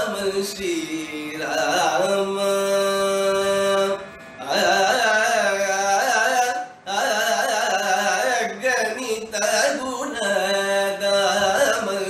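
Carnatic music in raga Dharmavathi: a male voice sings gliding, ornamented phrases without words over a steady drone, with short breaks about four and seven seconds in.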